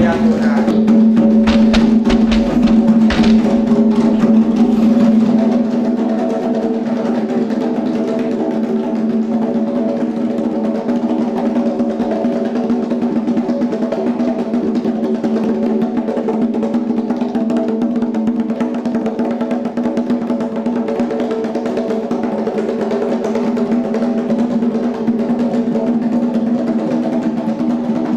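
Fast hand drumming on tall atabaque-style barrel drums over a steady, sustained droning chord. The first few seconds are louder, with heavier low thumps.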